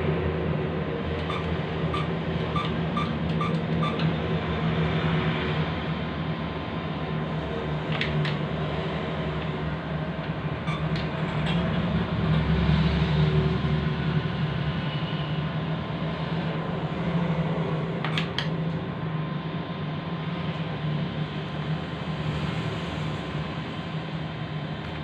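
ATM keypad beeping six times in quick succession as a PIN is keyed in, followed later by a few sharp clicks of the screen-side menu buttons. A steady mechanical hum runs underneath.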